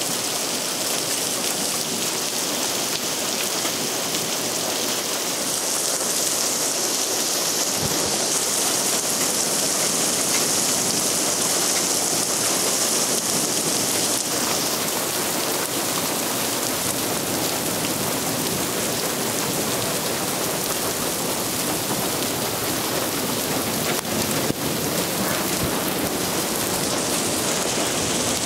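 Heavy rain falling steadily in a thunderstorm, an even hiss that grows brighter for a stretch in the first half.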